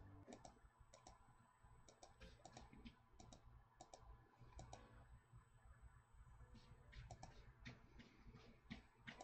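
Faint clicks of a computer mouse, scattered and often in quick pairs, over near silence.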